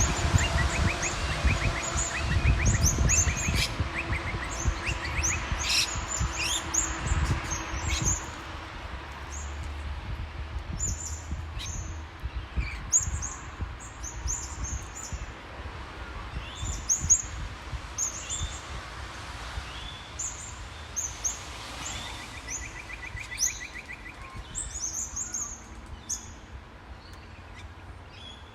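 Many birds chirping and calling, with a fast trill near the start and again about two-thirds of the way through. A low rumble of road traffic underneath fades about eight seconds in.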